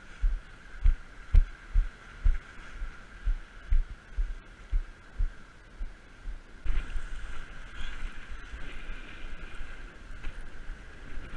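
Footsteps over jetty boulders heard as dull low thuds, about two a second, through the first half. From a little past halfway a steady rush of wind and surf takes over.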